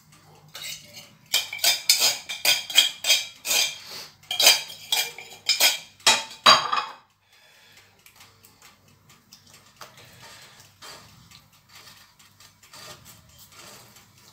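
Spoon clinking and scraping against dishes while tomato sauce is spread on pizza dough: a quick run of sharp clinks, a few a second, for about five seconds, then quieter soft scraping.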